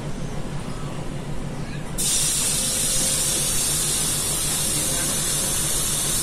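A loud, steady hiss of compressed air from the train's pneumatic air-brake system. It starts suddenly about two seconds in and cuts off abruptly at the end, over a low, steady hum.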